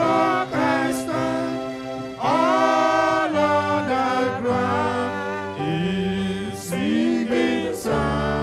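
Men's voices singing a slow hymn together into a microphone, with held, gliding notes, over sustained electronic keyboard chords.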